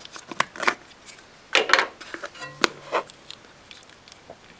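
A hand handles the plastic EEC test diagnostic connector and its cover, making a string of clicks, taps and rustles, loudest about one and a half seconds in.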